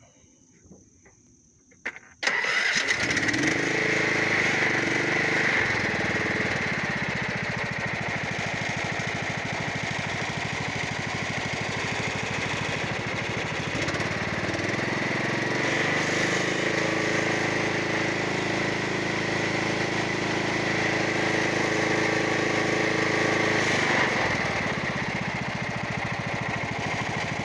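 Troy-Bilt 13 hp riding lawn mower engine started on choke: a couple of small clicks, then it catches quickly about two seconds in and runs steadily with a high whine.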